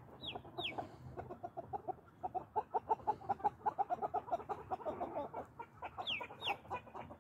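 Silkie chickens: a rapid run of low clucks through the middle, with a few high, falling peeps, two near the start and two near the end, from a young silkie separated from its mother.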